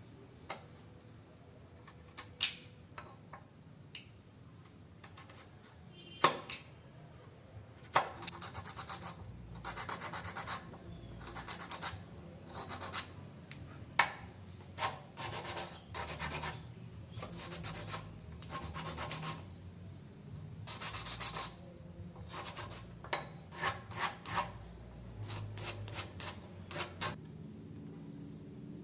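Wood being worked down by hand with an abrasive tool: scattered clicks and knocks, then a run of repeated scraping strokes about a second long each, with short pauses and occasional sharp knocks between them.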